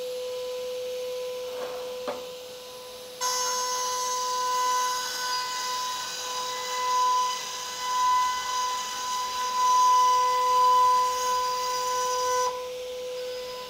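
Router spindle with a 3 mm end mill running with a steady high whine. About three seconds in the bit takes its cut along the board, routing a tambour groove, and the sound turns louder and brighter. Shortly before the end it drops back to the plain spindle whine.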